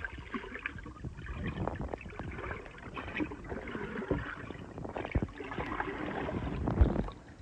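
Water sloshing and gurgling around a camera held just under the surface of a shallow river, with irregular clicks and knocks and one louder knock near the end.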